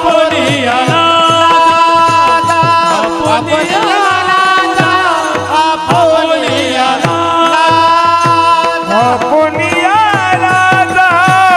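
Warkari bhajan: a group of men's voices singing a devotional chant with long held, wavering notes, accompanied by brass taal hand cymbals and a mridang drum keeping a steady rhythm.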